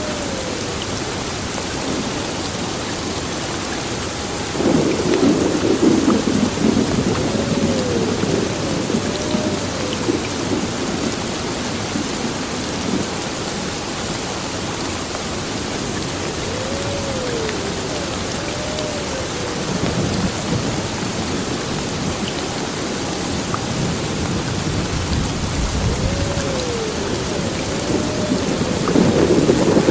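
Heavy rain pouring steadily, with rolls of thunder rumbling about five seconds in, again around twenty seconds in, and near the end.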